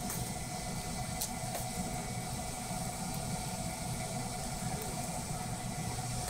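Steady hiss and hum with an unchanging mid-pitched tone, like a running fan, and a few faint ticks: the background noise at a wood-fired barbecue stall.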